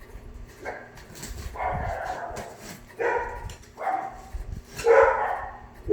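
A dog barking several times, short barks about a second apart.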